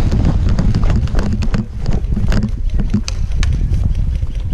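Wind buffeting the camera microphone in a steady low rumble, with scattered sharp clicks and taps throughout.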